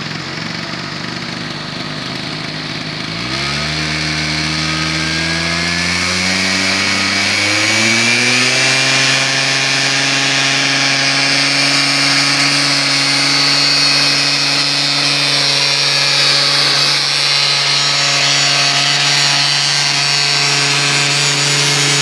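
MBK Stunt 50cc two-stroke scooter engine revved up in two steps a few seconds in, then held at high, steady revs. Its rear wheel spins in the river and throws up a plume of water, adding a hiss of spray.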